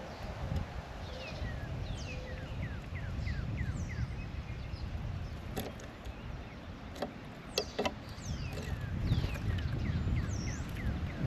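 A songbird singing two runs of quick, down-slurred whistled notes, several notes a second, with a few sharp clicks between them. Wind rumbles on the microphone throughout.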